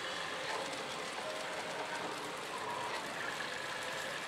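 Steady din of a busy pachislot hall: the slot machines' electronic tones over a dense, even clatter.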